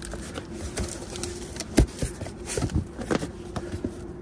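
Gloved hands opening and handling a cardboard box: scraping and rustling of cardboard with scattered knocks, the loudest about two seconds in, as a magazine is lifted out.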